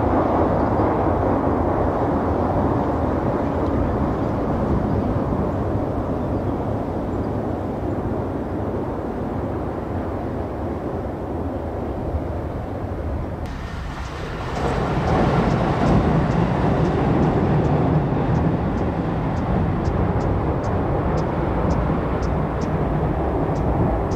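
A train running on rails with a steady rumble. Partway through, the sound changes abruptly to a louder rumble with a run of faint, evenly spaced ticks.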